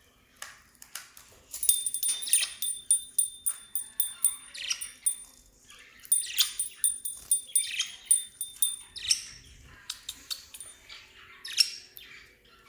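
Small pet parrots (lovebirds and budgerigars) chirping and calling in quick, overlapping bursts. Twice, a high ringing tone pulses rapidly for a few seconds behind them.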